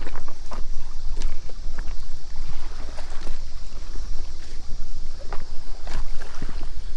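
Footsteps crunching over loose rocks on a riverbank, irregular steps a fraction of a second apart, over a steady low rumble of wind buffeting the microphone.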